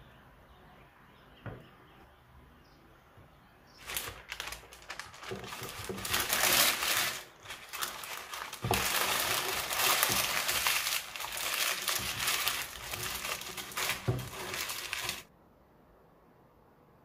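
Parchment baking paper crinkling and rustling as it is rolled up by hand around a flat cooked zucchini omelette. It starts about four seconds in and cuts off suddenly a couple of seconds before the end.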